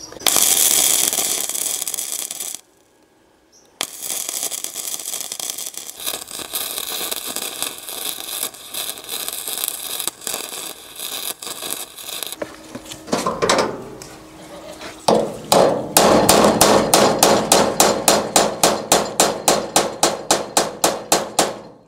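Electric arc welding crackling and sizzling in runs that stop briefly and start again. The last several seconds are a fast, even series of sharp hits, about five a second.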